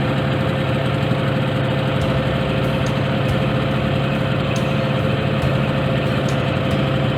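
Boat engine running steadily with an even hum while under way.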